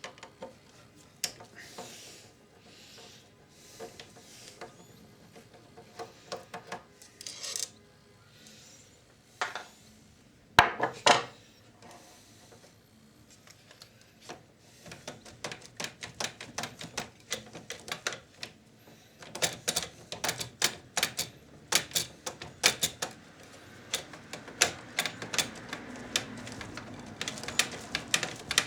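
Hand work inside a video recorder's tape mechanism: scattered clicks and knocks of small plastic and metal parts, one sharper knock a little before halfway, then a long run of quick light ticks through the second half.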